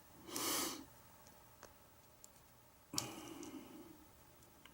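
Faint small clicks and ticks from handling tiny lock pins and a lock cylinder during rekeying. There is a short rustle just after the start and a sharper click about three seconds in.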